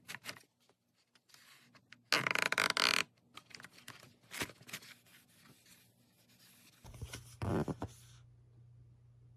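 Handling noises: scattered clicks and scrapes, a loud tearing rip lasting about a second two seconds in, and a shorter rip about seven and a half seconds in. A faint, steady low hum begins just before the second rip.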